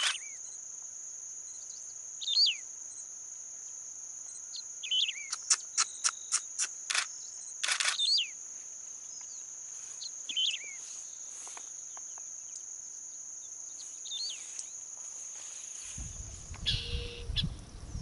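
A steady, high insect trill runs unbroken, with short falling bird chirps every few seconds and a quick run of sharp clicks around the middle. Near the end the trill stops and a low rumbling noise takes over.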